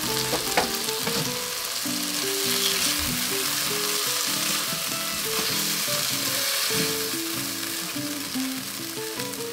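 Oyster mushrooms coated in perilla seed powder and perilla oil sizzling in a nonstick wok as a spatula stirs them, with a few light clicks of the spatula near the start. Soft background music with a simple melody plays under the sizzle from about a second and a half in.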